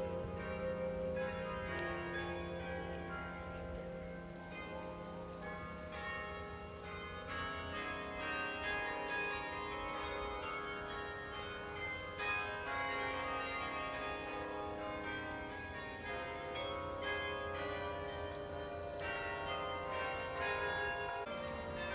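Bok Tower's carillon playing a tune, its bell notes struck one after another and each ringing on over the next.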